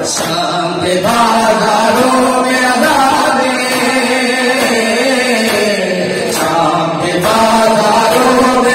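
A large crowd of men chanting a noha, a Shia lament, in unison. Sharp slaps of hands striking bare chests in matam land a few times, about a second apart, near the start and again near the end.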